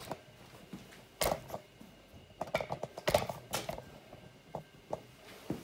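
A string of irregular clicks and knocks from hands handling parts and the camera beside a stripped motorcycle. The loudest come a little after one second and around three seconds in.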